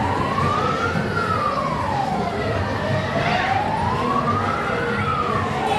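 Fire-truck siren wailing, its pitch sliding slowly up and down, a full rise and fall every few seconds.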